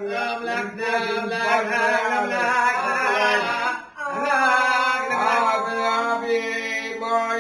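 Voices chanting a sung melody with long held notes, breaking off briefly about four seconds in and then resuming.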